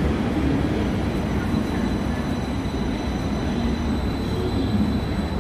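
Taipei Metro electric train running: a steady rumble of wheels on track with a faint, thin, high whine.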